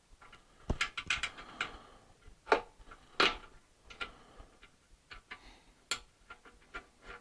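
Irregular light metallic clicks and taps of small fender bolts, lock nuts and hand tools being handled as the bolts are started. A few louder knocks stand out among them.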